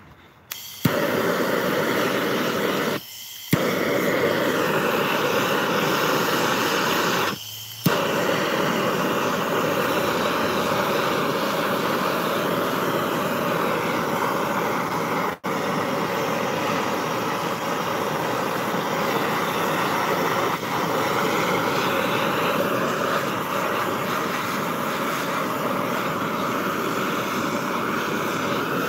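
Hand-held propane torch burning with a steady loud hiss, lit with a sharp pop about a second in. The flame cuts out briefly twice in the first eight seconds and is relit with a pop each time, then hisses steadily.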